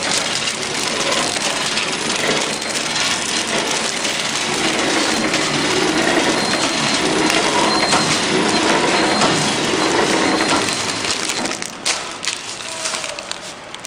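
Garbage bag roll packaging machine running, a steady dense clatter of its mechanism and plastic film. About twelve seconds in it drops to a quieter stretch with scattered clicks.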